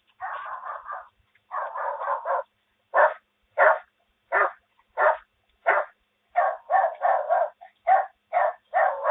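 A dog barking over and over, with longer runs in the first couple of seconds, then short sharp barks about twice a second.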